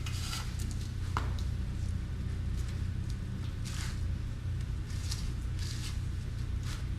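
Paint roller spreading wet Redgard liquid waterproofing membrane, a few irregular squishy swishing strokes with a sharp click about a second in, over a steady low hum.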